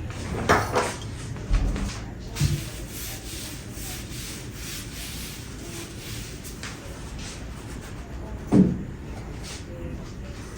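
Household objects being handled and moved about: rubbing and shuffling, with a few soft knocks in the first few seconds and a louder knock near the end.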